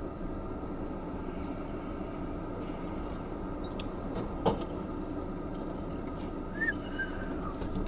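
Steady low rumble of a vehicle on the road, with a single light knock about four and a half seconds in and a faint short chirp near the end.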